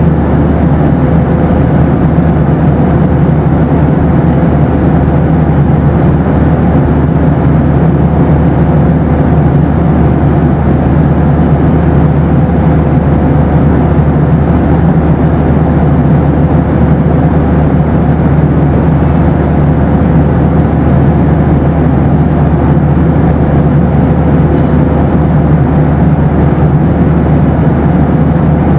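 Boeing 737 cabin noise in flight: a steady, deep rumble of engines and rushing air, with a thin steady hum running through it.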